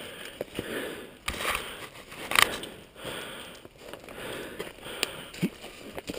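Footsteps crunching and rustling through dry fallen leaves, uneven and irregular, with one sharper, louder crunch a little over two seconds in.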